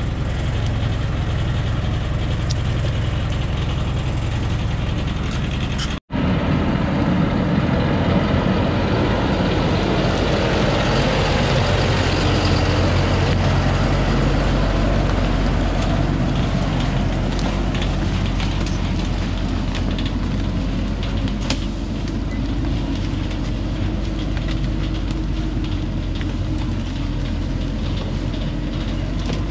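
Thaco Forland FC950 4WD truck's diesel engine idling, then after a break about six seconds in, running louder as the chained truck drives off along the track, swelling for a few seconds before easing.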